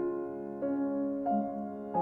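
Background piano music: soft chords, a new one struck about every half second to second.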